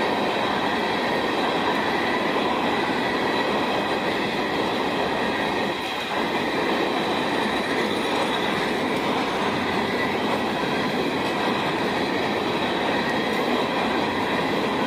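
Freight train of open-top hopper cars rolling past close by: a steady, loud rumble of steel wheels on the rails.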